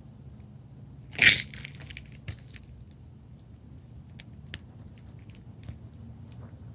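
Freshly pressure-washed cement crackling along its small cracks: scattered faint tiny pops and clicks, like Rice Krispies in milk. About a second in, a short loud hissing burst stands out above them.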